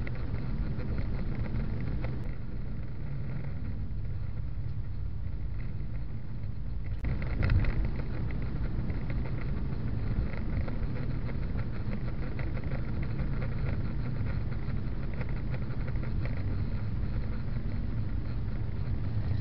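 Steady road and engine rumble of a car driving in freeway traffic, heard from inside the cabin through a dash camera, with a slight swell about seven seconds in.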